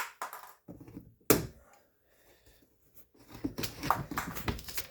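Plastic of a car's inner door panel being snapped and broken off by hand tool: two sharp cracks, then a fast run of crackling clicks near the end.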